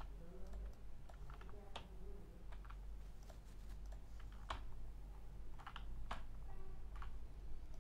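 Computer keyboard and mouse clicks, scattered single strokes a second or so apart rather than a run of fast typing, over a faint low hum.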